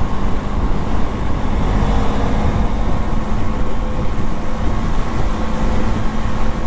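KTM 390 Duke's single-cylinder engine running steadily while the bike cruises at about 80 km/h in fourth gear. Rushing wind and road noise blend with it.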